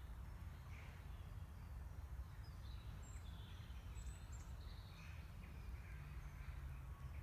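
Wild birds singing in the background, many short chirps and calls scattered throughout, over a low steady rumble.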